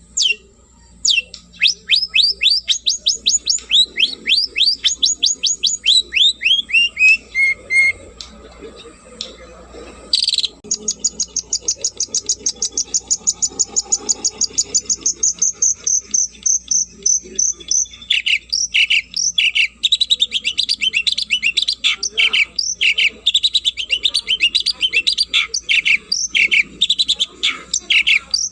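Long-tailed shrike (cendet) singing vigorously in varied phrases. First comes a run of quick, sharply falling notes, then a long, very fast high trill. Near the end it breaks into dense, scratchy chattering notes, with a single click about ten seconds in.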